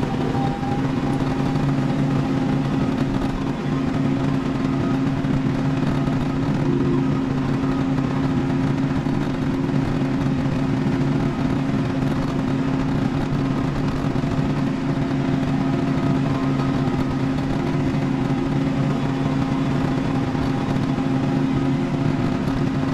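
Kubota tractor's diesel engine running steadily at road speed, a constant low drone heard from inside the cab.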